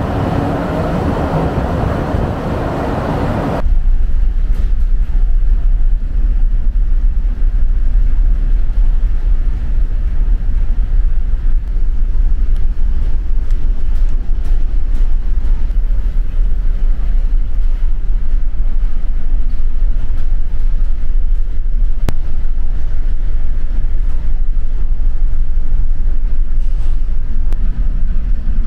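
Wind and sea noise on the open deck of a ferry at sea, cut off a few seconds in by a steady, deep drone from the ship's engines heard inside the vessel.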